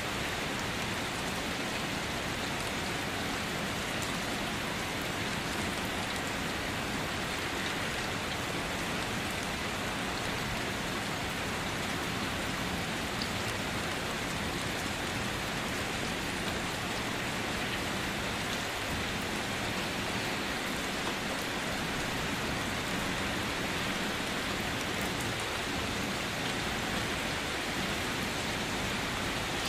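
Steady rain falling, an even, unbroken hiss of drops on hard surfaces.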